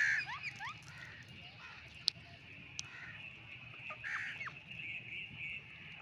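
Rose-ringed parakeets giving harsh squawks and short gliding chirps, loudest right at the start and again about four seconds in, with a sharp click around two seconds in. A steady high-pitched buzz sits in the background.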